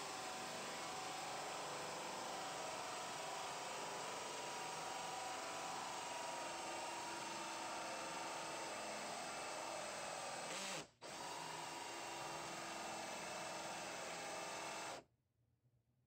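Cordless drill running steadily, driving a bimetal hole saw through a door to bore the handle hole. It drops out for an instant about eleven seconds in, runs again, and cuts off a second before the end.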